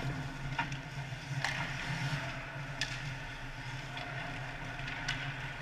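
Ice hockey play close to the net: skate blades scraping the ice and about five sharp clacks of sticks and puck, over a steady low hum.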